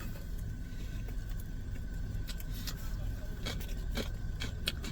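Steady low rumble of a running car heard from inside the cabin, with a faint steady whine and a few light clicks and rustles of things being handled.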